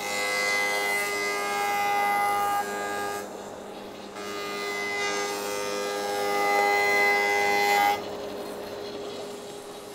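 Rikon 25-010H jointer-planer's cutterhead cutting a pine board, pass after pass: two loud whining cuts of about three to four seconds each, a second apart. The machine keeps running more quietly after the second cut ends about eight seconds in.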